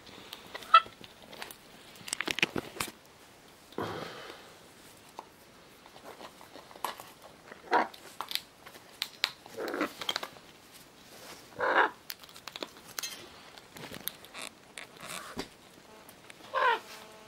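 Scarlet macaw eating seeds and nuts from a small stainless steel bowl: irregular beak crunches, clicks and knocks against the metal bowl, with a few short louder sounds spread through.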